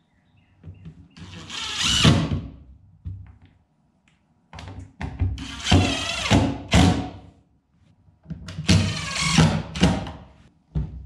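Cordless drill/driver running in three bursts as it drives screws down into a bench lid: about a second in, a longer stretch of short trigger pulls in the middle, and one more near the end, its motor pitch rising and falling.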